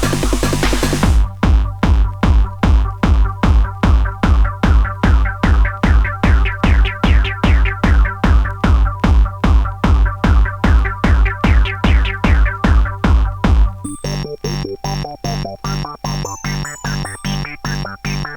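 Fast electronic dance music: a heavy drum-machine kick at about two and a half beats a second under repeating synthesizer stabs. A noise wash cuts off about a second in. Near the end the kick drops back and a high synth riff comes to the fore.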